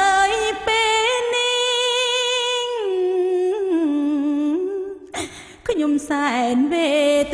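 Solo singing voice holding long, wavering notes that step down in pitch, with no instrument behind it. A short noisy break comes about five seconds in, then the singing carries on.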